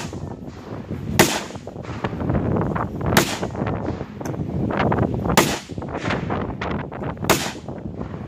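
Rifle shots, four sharp cracks about two seconds apart.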